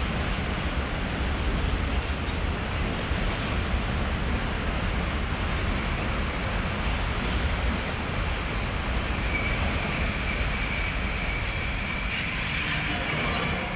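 Freight train hauled by an ET22 electric locomotive rolling slowly over the points with a steady rumble. From about halfway a high squeal of brakes or wheels builds, loudest near the end, as the train comes to a stop.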